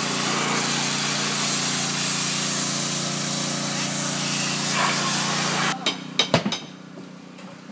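Pressure washer running: a steady hiss of spray over a steady low hum, cutting off abruptly near six seconds in. A few sharp knocks follow.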